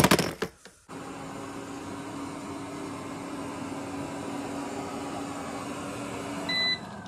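Toy cars clattering in a plastic bin at the start, then a Eufy robot vacuum running with a steady hum. A short beep sounds near the end.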